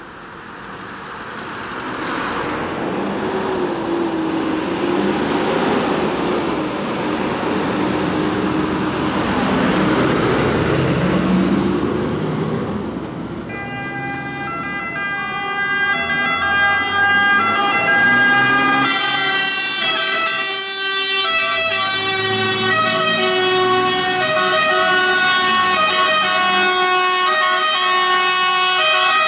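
Italian fire trucks' pneumatic two-tone siren horns blaring over truck engine and traffic noise. About halfway through, the steady horn tones start and switch back and forth between pitches. They get louder and fuller as the trucks come closer.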